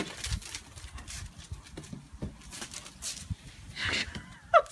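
Irregular footsteps and scuffs on brick paving, with a sharp knock at the start and a short high rising-and-falling cry near the end.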